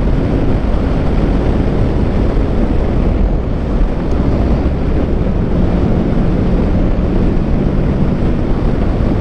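Wind rushing over the microphone at highway speed on a 2019 Kawasaki Ninja 650, with the bike's parallel-twin engine running under it; a steady engine note comes through more clearly from about halfway to near the end.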